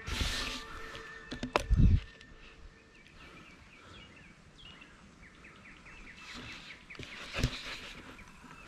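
Mountain bike trail-riding noise: a rush of noise and clicks at the start, a loud low thump just before two seconds in and another about seven and a half seconds in. Between them a bird chirps repeatedly.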